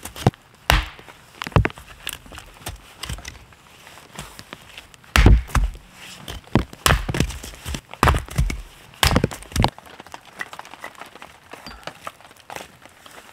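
Hatchet chopping firewood: irregular sharp thunks of the blade biting into the wood, about a dozen strokes. The loudest stroke comes about five seconds in, and the chopping stops about ten seconds in.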